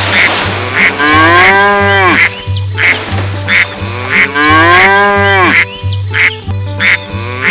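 Background music loop with a steady pulsing bass beat and sampled farm-animal sounds: two long cow moos, with short duck quacks between them.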